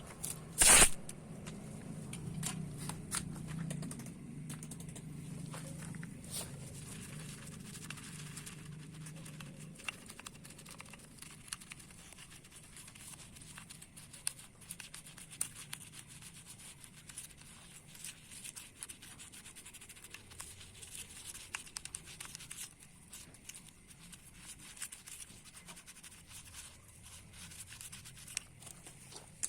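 Scattered light scratching, rubbing and clicking of hand work on old metal bicycle parts, with one sharp loud click about a second in and a low hum during the first third.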